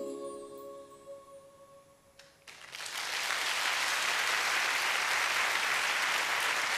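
The band's last held notes of a live song fade away. About two and a half seconds in, a concert audience breaks into steady applause.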